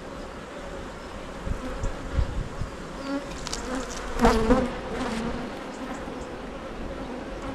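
Honey bees from an open hive humming steadily. A few low bumps come about two seconds in, and a louder buzz swells briefly about four seconds in.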